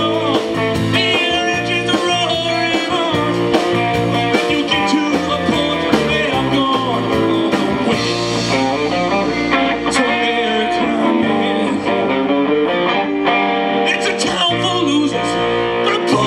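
Live rock band playing loudly, with guitar and the singer's wordless vocals over the band.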